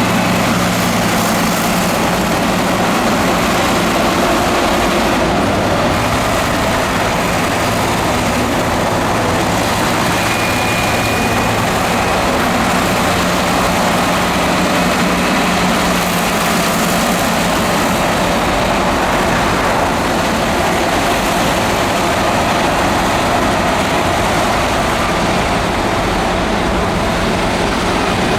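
Heavy diesel earthmoving machinery, a bulldozer and dump truck at work, running steadily with a continuous engine drone.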